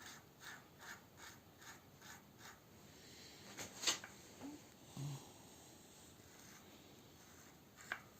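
Bicycle front hub cone being screwed by hand onto the threaded axle: a run of faint small metallic clicks, about three a second, then a sharper single click near the middle.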